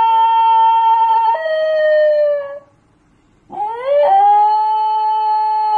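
Basenji howling: two long yodel-like howls, each rising, holding a steady pitch, then breaking suddenly to a lower note that slides down and fades. The first breaks about a second and a half in and ends around the middle; the second starts after a short pause and breaks near the end.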